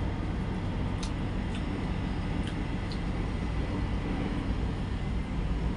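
Steady low rumble of background machinery, with a few faint clicks from eating by hand and chewing.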